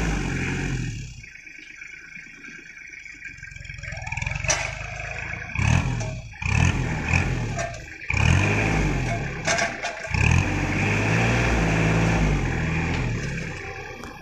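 Kubota L3200 tractor's three-cylinder diesel engine running, dropping back to a lower idle about a second in, then revving up and down in repeated surges while the hydraulic crane grabber is worked. A few sharp knocks sound in between.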